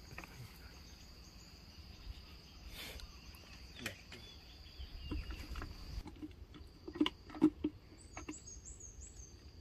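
Insects droning with a steady high tone that fades about six seconds in, over rustling and a few soft knocks as someone moves through grass. A few short high chirps near the end.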